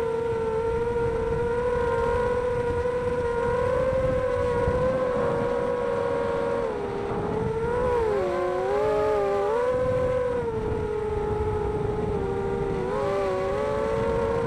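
Xbird 250 FPV racing quadcopter's brushless motors and 5-inch props making a steady whine. The pitch wavers, then dips and splits into several tones about eight seconds in as the motors change speed through a turn, and rises again near the end.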